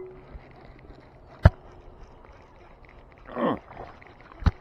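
A cast with a baitcasting rod and reel: a sharp click about a second and a half in, a brief falling whir around three and a half seconds in as the lure lands in the water, and another sharp click near the end.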